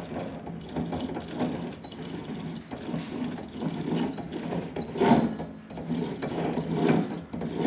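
Ryobi table saw's blade and motor turned over by hand, unpowered, with a rough, uneven grinding from the bearings as it goes round. The bearings are cooked.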